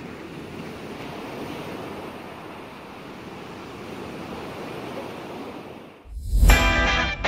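Ocean surf breaking on a beach as a steady rushing wash. About six seconds in it drops out, and a low thump starts distorted electric-guitar music, which is louder than the surf.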